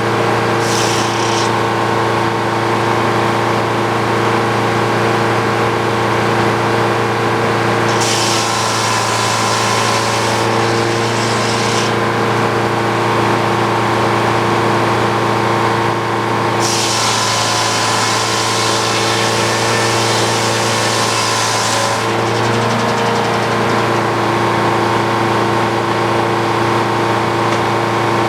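A Frick OO circular sawmill runs with its engine droning steadily while the blade saws through an ash log. A hissing cut comes in briefly about a second in, then for about four seconds from eight seconds in, and again for about five seconds past the middle.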